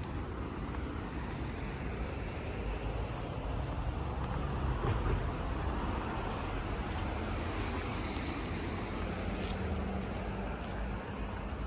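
Road traffic: a steady rumble of cars passing on the street, swelling slightly about halfway through as a vehicle goes by.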